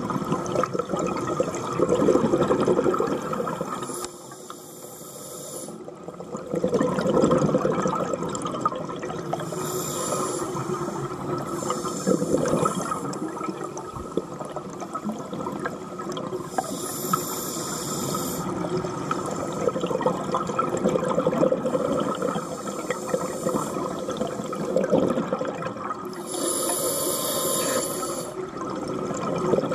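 Scuba regulator breathing underwater: repeated breaths, with hissing inhales and rushes of bubbling exhaled air every few seconds.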